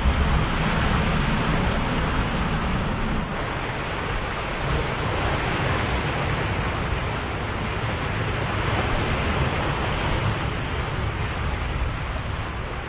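Ocean surf: waves breaking and washing in a steady, continuous rush, with a deeper rumble in the first few seconds that eases about three seconds in.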